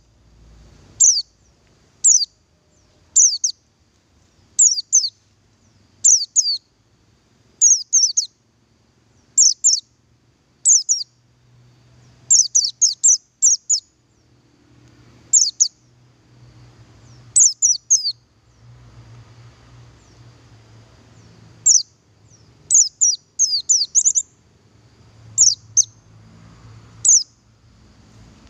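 Male Oriental white-eye of the buxtoni race ('pleci buxtoni') giving short, high, down-slurred call notes. They come singly about once a second at first, then in quick runs of two to five notes with short pauses between.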